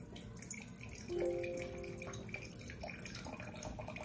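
Apple cider vinegar pouring from a bottle in a thin stream into a glass jar, trickling and dripping. A short steady tone sounds about a second in, the loudest part.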